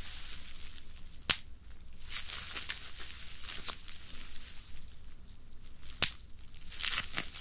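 Bubble wrap being squeezed by hand: the plastic crinkles steadily, small bubbles crackle, and two bubbles burst with sharp, loud pops, one about a second in and one about six seconds in.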